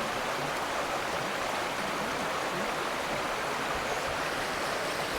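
Rushing water of cascading waterfalls and stream: a steady, even rush with no break.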